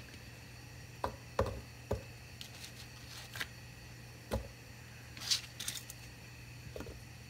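Zucchini chunks dropped by hand into a glass blender jar onto cut carrots: a few scattered soft knocks and thuds. A faint steady low hum runs underneath.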